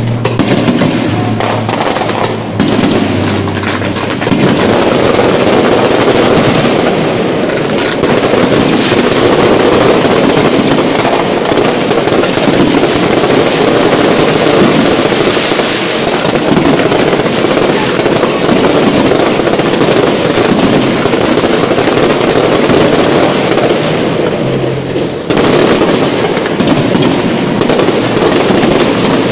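Fireworks barrage at very close range: a continuous, very loud rattle of overlapping shell bursts and crackling, with no pause.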